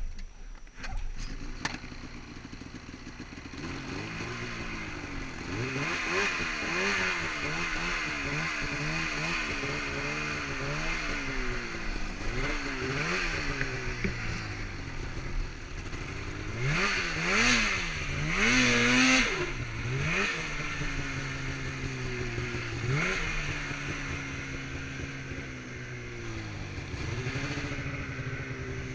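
Snowmobile engine running with the throttle opened and eased again and again, its pitch rising and falling, with two louder, higher revs about two-thirds of the way through.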